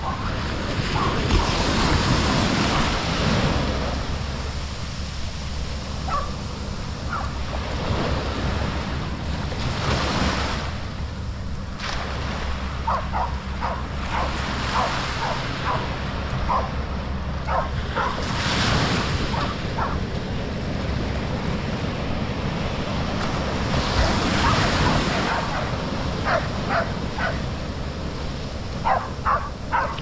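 Small Pacific Ocean waves breaking and washing up the sand in repeated surges, with wind rumbling on the microphone. A dog barks in short clusters, several times midway and again near the end.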